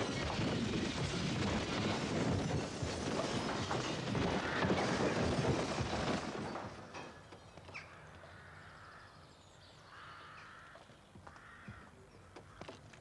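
The long rumbling roll-off of a high-explosive blast, a 5-pound briefcase bomb detonated inside a railway carriage, dying away over about six seconds. It is followed by a few short bird calls.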